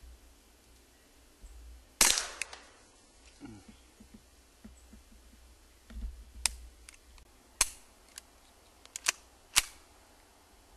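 Suppressed .22 LR shots from a Walther P22 pistol with a Gemtech Outback II suppressor, firing subsonic ammunition: sharp cracks with no loud report. One shot comes about 2 s in, then after a pause four more come in quicker succession, with a few faint metallic clicks between them.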